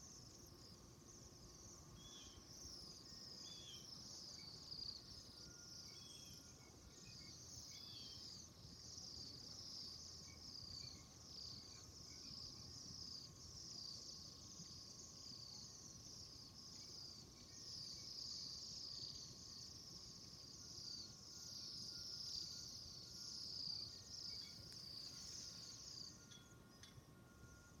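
Faint, dense chirping of a flock of small birds: many short, high, overlapping calls running on without a break. It thins out briefly near the end.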